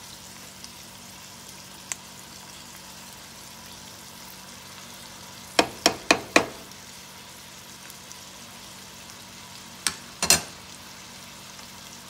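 Sausages and vegetables sizzling steadily in a frying pan, with a few sharp clacks of cookware: a cluster of four around six seconds in and two more near ten seconds.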